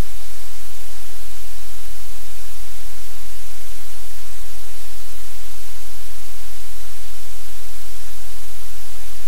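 Loud, steady static-like hiss with a low rumble underneath, unchanging throughout; no separate sounds stand out from it.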